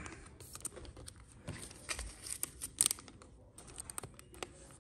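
Foil trading-card pack wrappers crinkling and cards being handled: a run of small irregular rustles and clicks, sharpest near the middle.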